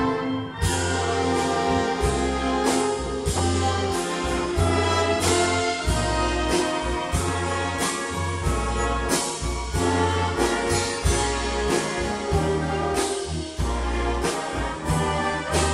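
A live band with prominent brass plays a lively arrangement over a steady beat and a moving bass line. The full band comes in strongly about half a second in.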